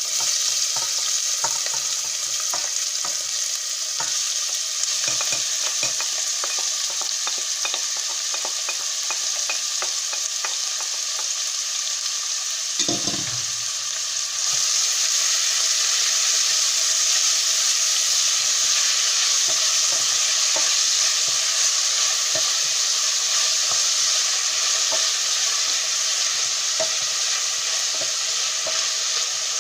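Diced onions sizzling in hot olive oil in a pan, with the small clicks of a utensil stirring them. About halfway through there is a short low thump, and after it the sizzle grows louder.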